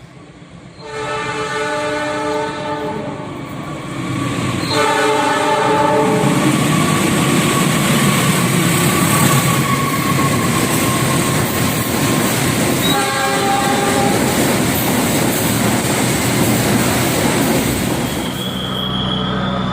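Railway locomotive horn sounding a multi-tone chord twice, about two and a half seconds then a second and a half, before the train passes close by with a loud rolling rumble and wheel clatter. A short third horn blast comes about 13 seconds in, and another horn starts near the end.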